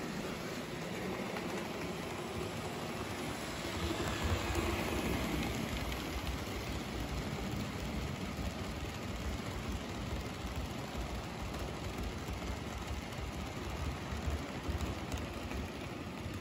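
N-scale model freight train running on its track loop: a steady fine rattle of the cars' small wheels on the rails, louder for a couple of seconds about four seconds in.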